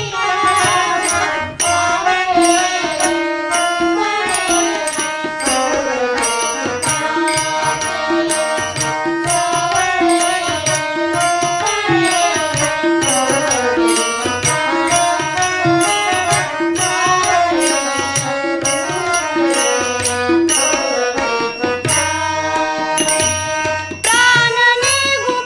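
Marathi devotional abhang music: tabla drumming under a gliding melodic lead, with a steady beat of bright metallic ticks.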